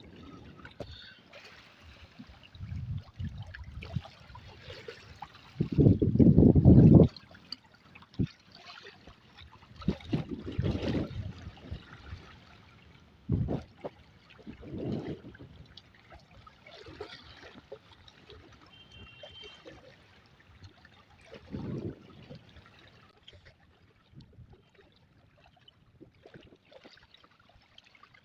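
River water trickling and splashing in irregular bursts, with a loud low rumble lasting about a second around six seconds in.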